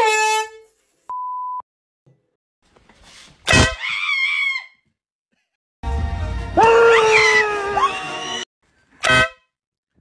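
Handheld air horns going off in a quick series of prank clips: a short horn blast at the start, a one-tone censor bleep about a second in, then loud sudden blasts mixed with startled screams about three and a half seconds in and again from about six seconds in, and a short final blast near the end.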